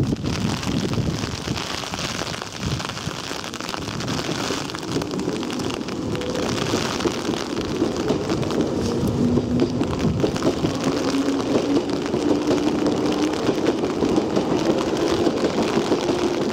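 London Underground 1973 Tube Stock train pulling away from the platform, its traction motors whining in a slowly rising pitch as it gathers speed from about five seconds in, over a steady hiss of heavy rain.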